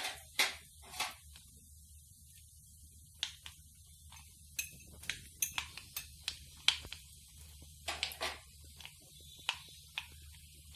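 Mustard and cumin seeds popping in hot oil in a kadhai: irregular sharp pops over a faint low hum, few in the first seconds and more frequent from about the middle on. The popping shows that the tempering seeds are done.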